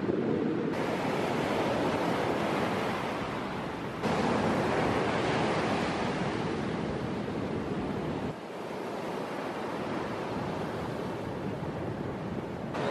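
Ocean surf breaking and washing up a sand beach, with some wind on the microphone. The level changes abruptly three times as one recording cuts to the next.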